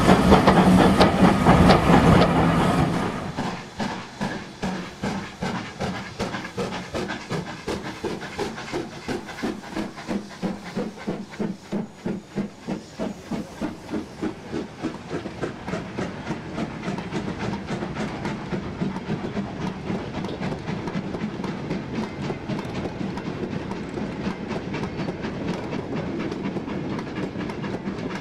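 A sound-fitted model steam locomotive chuffing and hissing loudly for about the first three seconds. Then comes the quieter, steady clickety-clack of a rake of OO gauge coal wagons rolling past, their wheels clicking rhythmically over the rail joints.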